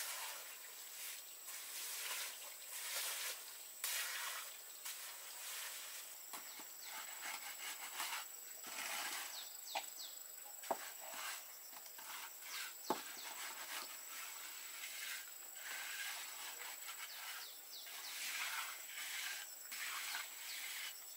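Gravelly concrete mix being scraped and spread over the ground by hand, in repeated scraping strokes, with two sharp clicks of stones knocking near the middle.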